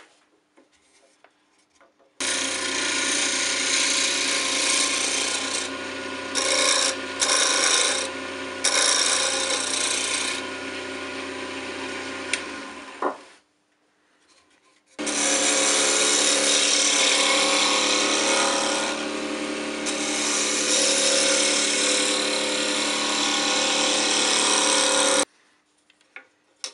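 Wood lathe running while a turning chisel cuts a plum-wood blank, in two long runs with a short pause just after the middle. The cutting noise rises and falls as the tool bites.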